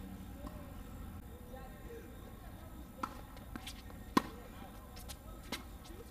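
Tennis ball on a hard court between points: a handful of sharp, irregular pops of the ball bouncing and being knocked about, the loudest about four seconds in.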